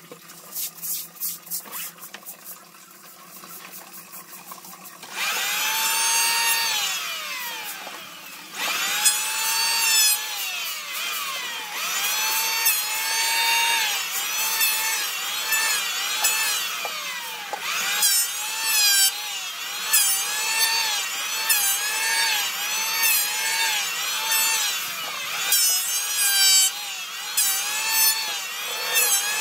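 Rhythmic hand strokes rubbing across a wooden board for the first couple of seconds. From about five seconds in, a handheld electric power tool runs against wood, its motor pitch rising and falling over and over, about once a second near the end, with two long winding-down glides.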